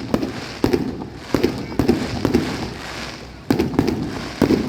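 Fireworks going off: a string of about eight sharp bangs at uneven intervals, each trailing off in a short echo.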